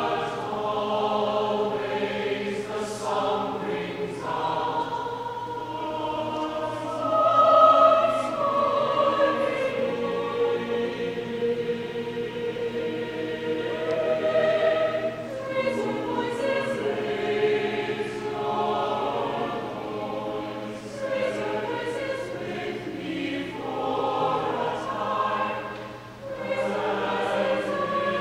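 Choir singing sustained phrases, swelling to its loudest about eight seconds in.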